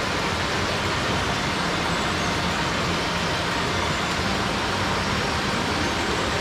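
Steady rushing noise of a fast-flowing mountain stream, even and unbroken.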